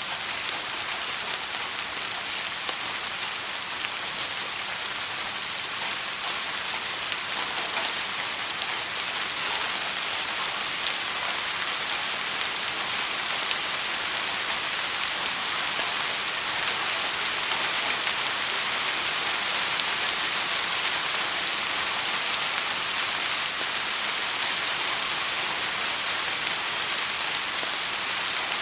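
Steady soft rain: an even hiss of many fine drops falling, with no thunder.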